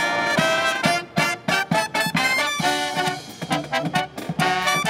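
Brass marching band playing a lively number: short, punchy brass chords from trumpets, trombones, saxophones and sousaphone over snare and bass drum hits.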